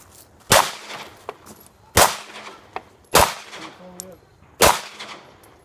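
Four loud pistol shots, spaced about one and a half seconds apart, each followed by a short echo.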